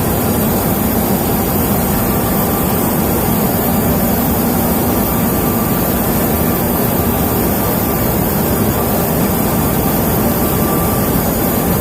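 Steady, loud industrial roar of a steelmaking converter shop, with a low hum underneath, unchanging throughout.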